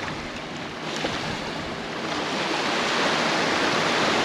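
Gentle surf washing up over flat wet sand, a steady hiss that swells about halfway through.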